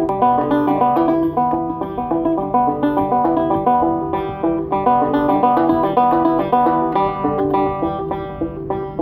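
Zither banjo picked solo: a steady, repeating pattern of short plucked notes over a held low note.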